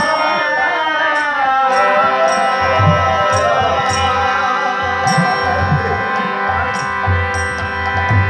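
Bengali nam kirtan devotional music: a sustained instrumental chord under chanting voices that fade out after the first couple of seconds. Hand cymbals strike in a steady beat, and a low drum joins from about three seconds in.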